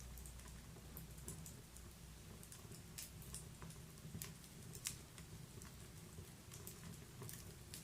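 Faint wood fire crackling in a fireplace: irregular small pops and snaps over a low steady hum, with the loudest pop about five seconds in.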